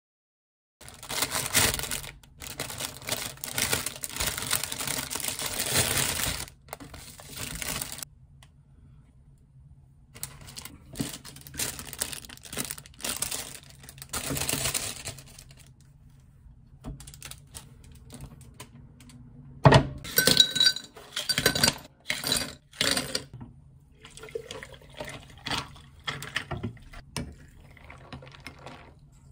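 Rustling of plastic bread bags while bread is torn apart. A little past the middle, a quick run of sharp ringing clinks, as of ice cubes dropping into a glass, and near the end a shot of espresso is poured over the ice.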